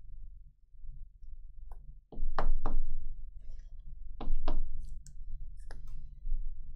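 A trading card being handled and slipped into a clear plastic sleeve: about five sharp clicks and taps, a pair about two seconds in, another pair a couple of seconds later, then one more.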